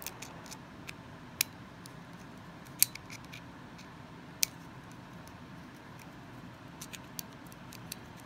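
Small, sharp metallic clicks, a handful spread a second or more apart, from a flat-head screwdriver and fingers working the small screw that holds the cutter wheel on a ratchet tube cutter's head while it is unscrewed.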